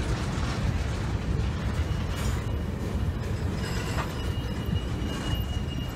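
Freight train of tank cars rolling past close by: a steady rumble and clatter of steel wheels on rail. A faint, thin, high steady tone joins about four seconds in.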